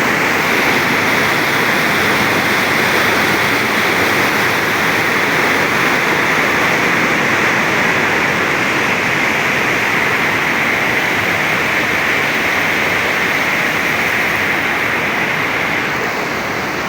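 Waterfall rushing steadily: a loud, even hiss of falling water with no let-up.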